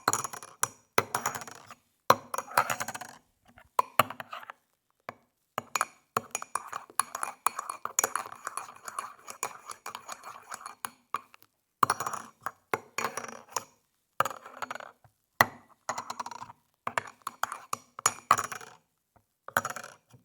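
A metal spoon stirring coffee in a ceramic mug, clinking rapidly against the mug's sides in runs of stirring broken by short pauses.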